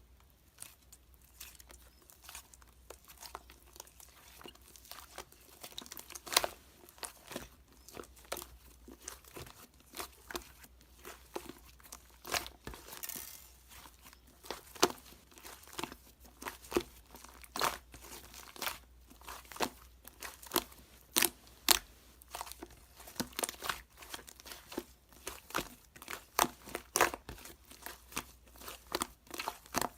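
Hands working slime: a string of irregular sticky pops and clicks, sparse at first and coming several a second from about six seconds in.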